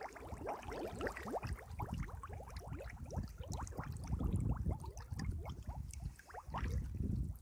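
Wet mud and water gurgling and sloshing as someone wades through it in boots, with a dense run of quick bubbling pops and low thuds.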